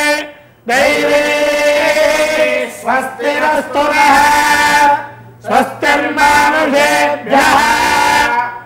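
Men chanting Vedic Sanskrit hymns in long, drawn-out melodic phrases, with short breaks for breath about half a second in and again around five seconds in.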